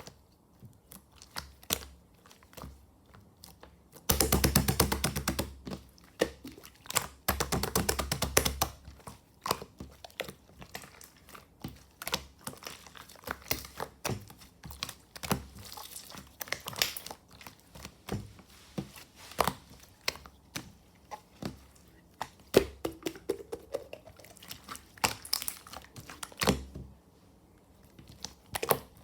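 Thick, chewy slime being pressed and stretched by hand, giving sticky clicks and little pops. Two longer stretches of rapid crackling come about four and seven seconds in.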